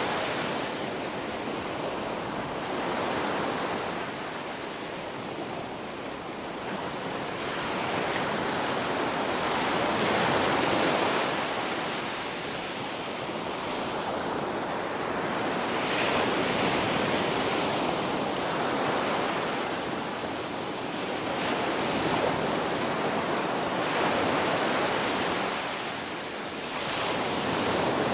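Sea waves breaking and washing on a beach, a continuous surf that swells and ebbs every few seconds.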